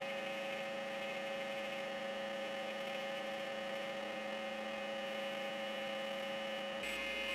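A 2x72-inch belt grinder running with a steady electric hum. Near the end its tone changes and a higher whine joins in.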